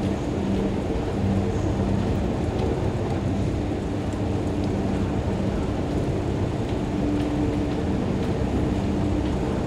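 Long escalator running: a steady low mechanical rumble with a faint hum, heard while riding on it.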